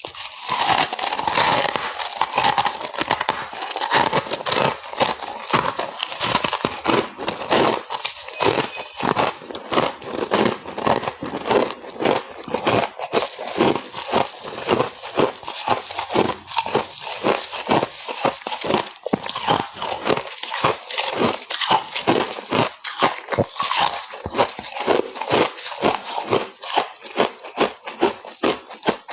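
Frozen frost ice crunching close to the microphone, a dense run of sharp crunches that settles into a steady rhythm of about two to three a second.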